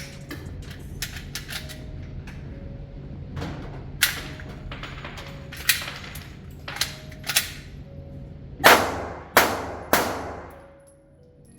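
Pistol shots from a P80 Glock 19 build: a scattering of quieter shots, then three loud shots in quick succession about half a second apart near the end, each with a ringing echo.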